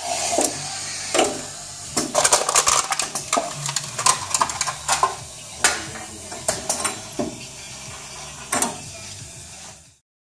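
Pneumatic cup-crusher machine working: air cylinders stroking and solenoid valves switching, giving a run of sharp metallic clacks and knocks at irregular spacing, with short hisses of exhausting air.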